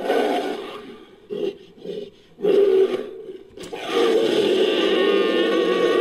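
Monster roar sound effects for a bear-like creature, pieced together from animal roars. A loud roar fades away, two short growls follow, then a second loud roar. After a brief click, a long held roar with a wavering pitch starts at about four seconds in.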